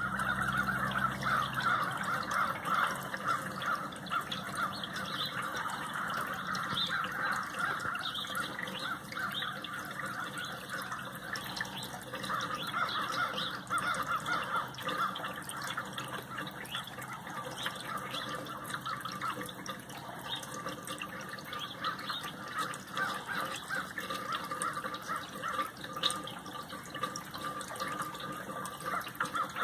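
A flock of crows cawing, many calls overlapping without a break, with rain falling.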